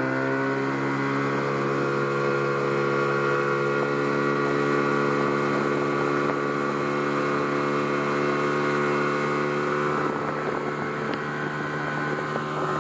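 A 30-horsepower outboard motor pulling a water-skier at high throttle. Its pitch rises briefly at the start, then holds steady.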